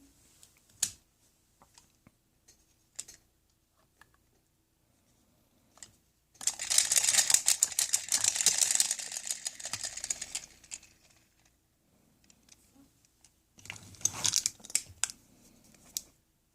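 Scattered light clicks, then two stretches of dense scratchy rustling and crackling, the first and louder lasting about four seconds, the second shorter, near the end. These are the sounds of small objects being handled close up.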